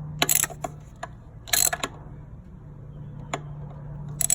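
Hand ratchet clicking in three short bursts of rapid clicks, with a few single clicks between, over a steady low hum.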